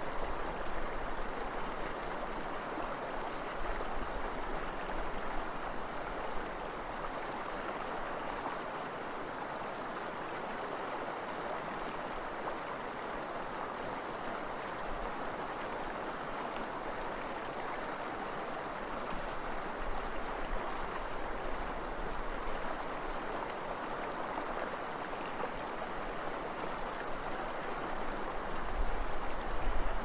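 Eel River running fast over a gravel bar and shallow riffles: a steady rushing of water. Occasional low rumbles come and go under it, strongest near the end.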